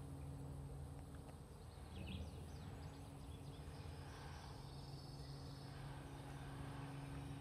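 Quiet background: a steady low hum, with a few faint high chirps about two seconds in.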